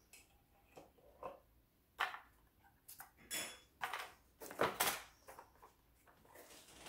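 Cardboard packaging being handled: a few irregular scrapes, knocks and rustles as small cardboard boxes are lifted and moved.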